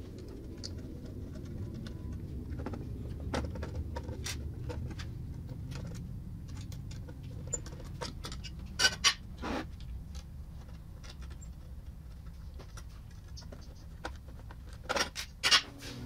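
AudioControl car amplifiers being handled and shifted on a tabletop: light taps, scrapes and clicks over a low steady rumble, with a few sharper knocks about nine seconds in and again near the end.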